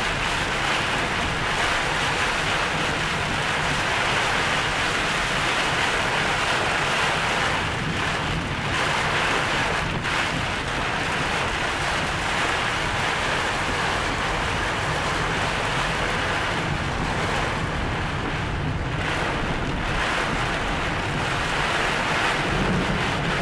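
Wind-driven heavy rain and gusting storm wind battering a car, heard from inside the cabin: a steady, loud rush of noise. The winds come from a severe thunderstorm with a tornado forming nearby.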